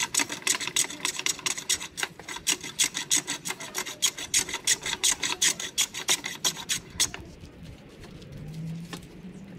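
Small hand plane shaving the bark and wood off a stick for a walking stick, in quick repeated rasping strokes, about three a second, that stop about seven seconds in.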